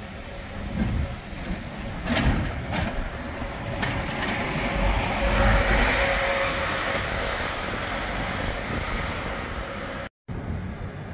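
Diesel double-decker bus engine running as the bus drives past, building to its loudest about five to six seconds in. A few knocks come around two seconds in, and the sound breaks off briefly near the end.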